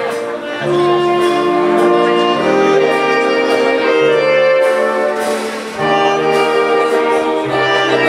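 Jazz big band playing live: held trumpet, trombone and saxophone chords over a bass line, with light cymbal strokes from the drum kit.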